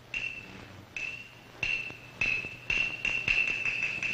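Cantonese opera percussion: a single high, ringing percussion instrument struck about ten times, slowly at first and then quickening into a fast roll.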